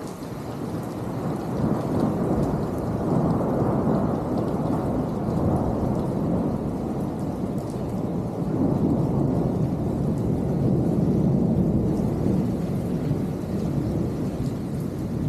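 Heavy stormy downpour in a thunderstorm, with a long, continuous low rumble that swells and eases over several seconds.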